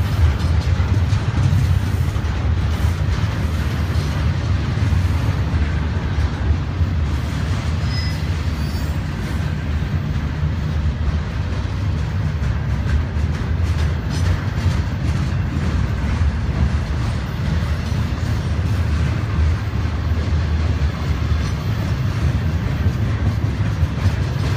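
Double-stack intermodal container train cars rolling steadily past, a continuous low rumble of wheels on rail.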